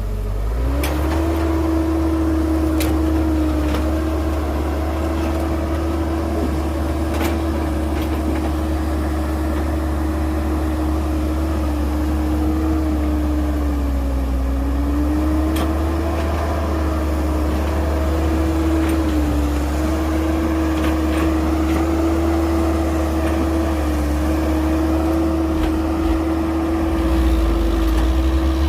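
Heavy diesel machinery running steadily: a deep engine rumble under a steady whine that sags slightly in pitch a few times, with a few faint clicks.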